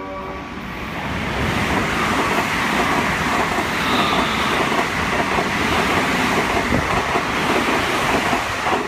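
JR West electric multiple unit running through the station at high speed without stopping. The wheels and air rush past in a steady, loud din that builds about a second in and holds while the cars go by.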